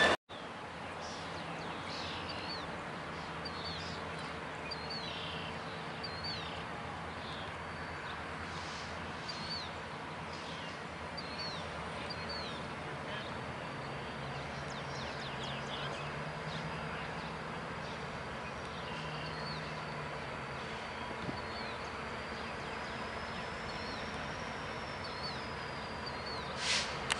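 A small bird repeats a short chirp about once a second over a steady outdoor hum. A brief rush of noise comes just before the end.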